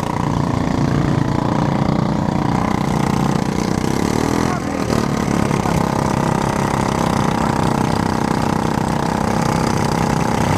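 Several riding lawn mower engines idling together, the nearest loud from the driver's seat, with a brief shift in engine pitch about four and a half seconds in.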